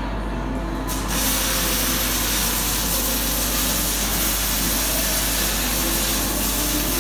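A loud, steady hiss that starts abruptly about a second in, with faint steady tones underneath.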